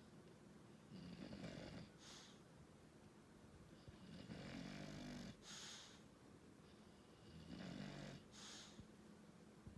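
English bulldog snoring quietly, three slow breaths about three and a half seconds apart. Each is a low, rattling snore followed by a short airy hiss.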